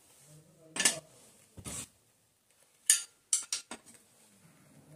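Metal hand tools clinking and tapping against the cast clutch cover of a Hero HF Deluxe engine while it is being fitted and bolted down: a few separate sharp clinks, then a quick run of several more past the middle.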